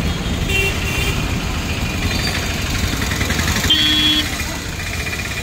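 Motor scooter engine running while riding through traffic on a flooded street. A short horn beep sounds about four seconds in.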